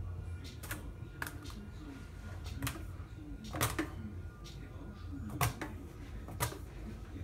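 Sharp, irregular taps and clicks, about six of them a second or so apart, as a hand-shaped toy on a stick knocks against a cupboard door, over a steady low hum.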